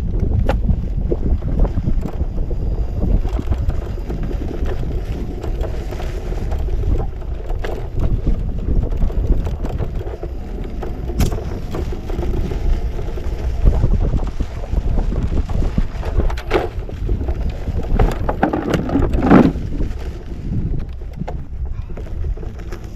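Wind buffeting the microphone over the low rumble of a Kingsong S18 electric unicycle being ridden along a track, with scattered short knocks and rattles and a louder clatter about nineteen seconds in.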